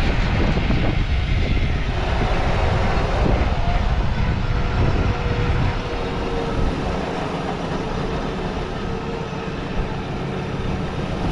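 A vehicle's engine running hard as it tries to drive through soft, powdery sand and stays bogged. The heavy low rumble eases about six seconds in, leaving a lighter steady running sound.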